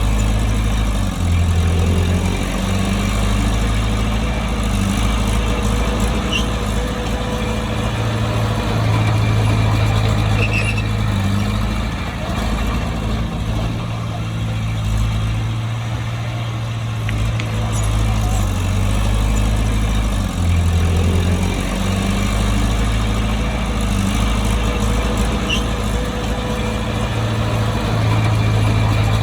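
Bulldozer's diesel engine running under load, a steady low drone whose pitch shifts up and down as the engine works.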